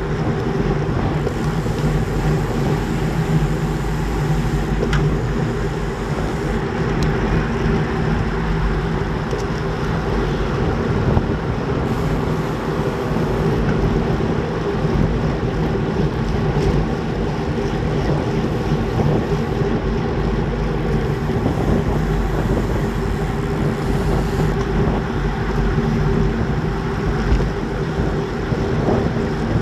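Steady wind rushing over a bike-mounted camera's microphone at about 42 km/h, mixed with the rolling noise of road-bike tyres on a dirt forest path.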